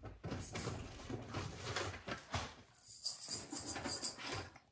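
Small plastic toy kitchen pieces rattling and clicking in quick, uneven taps and shakes.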